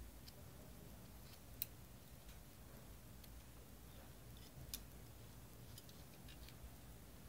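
Faint small clicks of metal tweezers touching the parts of a 1/18 diecast Ferrari 156 model, with two sharper clicks, one about a second and a half in and one near five seconds in.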